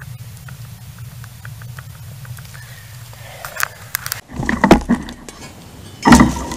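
Handling knocks and rustling, then near the end a loud, short crunch of a metal shovel blade driven into forest soil.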